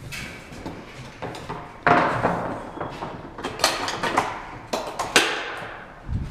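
Knocks and scrapes of a wooden workpiece and gear being handled and slid about on a worktable, with the loudest knocks about two seconds in and around five seconds in.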